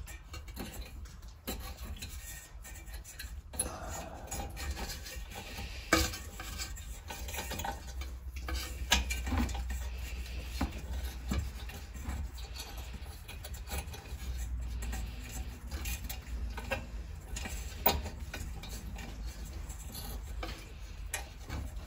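Small metal clicks, clinks and scraping as a thermocouple's spring clip is worked into place on a patio heater's sheet-metal burner head, with a few sharper clicks scattered through.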